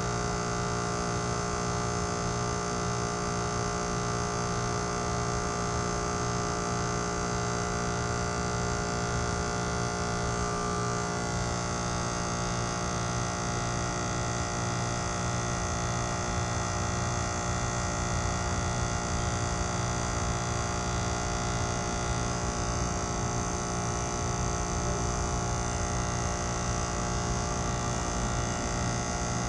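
2018 Trane XR14 heat pump's outdoor unit running steadily in its defrost cycle: a constant compressor hum of many steady tones, which shifts slightly about eleven seconds in.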